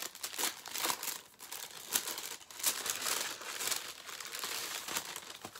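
Paper packaging crinkling and rustling as it is handled and unwrapped by hand, with a quick run of sharp crackles.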